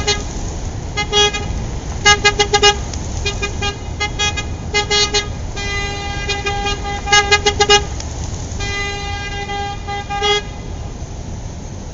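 Car horn honking repeatedly: quick bursts of several short beeps, about five a second, alternating with a few longer held honks of a second or more, over a steady low traffic rumble.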